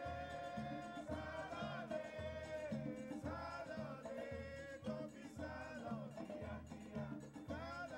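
Background music: a melody of held, wavering notes over a steady, repeating bass line.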